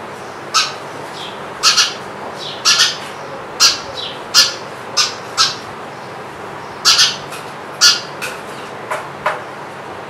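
House sparrow giving short, sharp chirps, irregularly spaced and often in quick pairs, while it faces and confronts its own reflection in a mirror.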